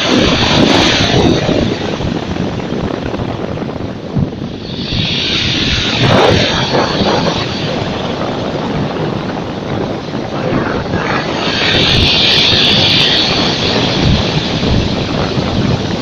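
Black Sea surf breaking on a pebble beach: three waves crash and wash up the shore, at the start, about five seconds in and about twelve seconds in, each a swelling hiss of foam over a steady rumble of sea.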